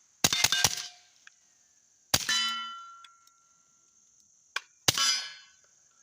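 Unsuppressed Ruger Mark IV 22/45 Lite .22 LR pistol firing: three quick shots at the start, then two single shots about three seconds apart. Each of the later shots is followed by a metallic ring, typical of rounds striking a steel target.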